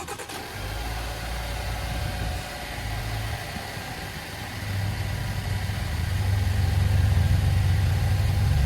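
Land Rover Discovery engine cranking briefly and catching on a freshly installed battery, then running steadily. The engine note grows louder about halfway through.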